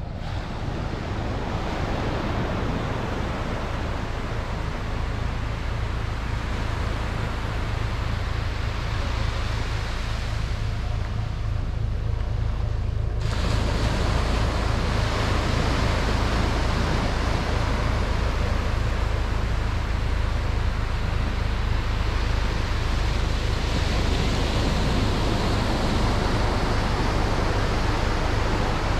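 Sea surf breaking and washing up on a sandy beach, a continuous rushing noise, with a low wind rumble on the microphone. The sound turns brighter and a little louder abruptly about thirteen seconds in.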